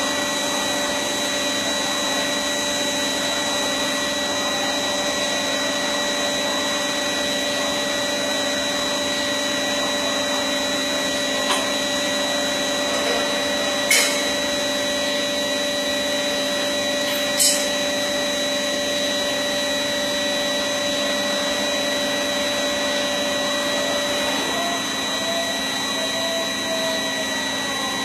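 CNC machine running steadily, a constant whine of several tones over a rushing noise, with a few brief clicks in the middle.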